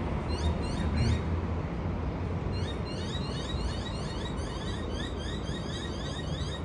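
Low rumble of a bus driving away, strongest in the first second or so and then easing off. From about two and a half seconds in, birds chirp over it with rapid, repeated short rising chirps, several a second.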